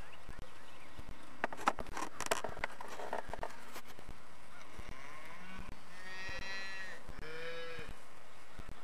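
A farm animal calling twice in quick succession: a drawn-out call of about a second, then a shorter one. It comes after a cluster of sharp knocks and rustles, which are the loudest part.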